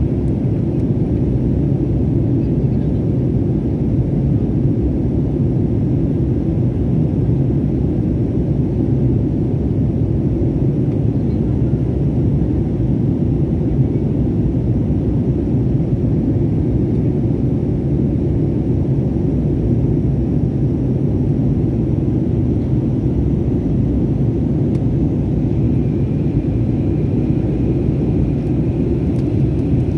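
Passenger plane cabin noise: a steady, loud low rumble of engines and airflow, unchanging throughout.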